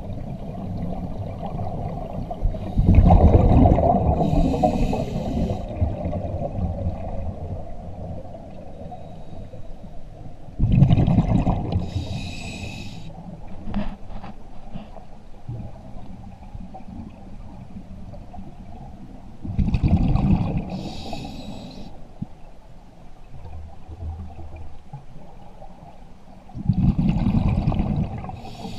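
Scuba diver breathing through a regulator underwater: four breaths about eight seconds apart, each a loud rumble of exhaled bubbles followed by about a second of regulator hiss on the inhale.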